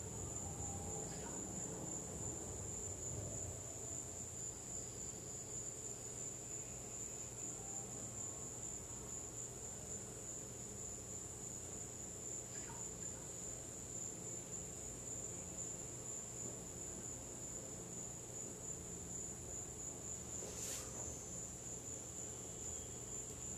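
A steady high-pitched whine over a faint low hum, with a soft click near the end.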